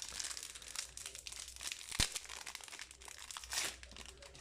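Plastic and foil packaging crinkling as trading cards and booster-pack wrappers are handled, with a quick sharp click about halfway through.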